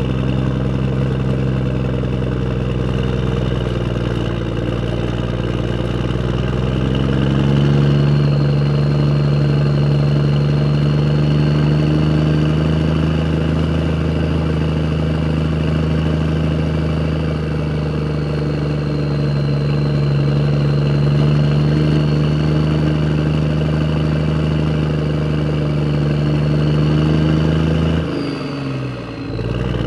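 Car engine running steadily at a constant pitch, stepping up slightly about a quarter of the way in. Near the end its pitch drops and the sound breaks off for a moment before starting again.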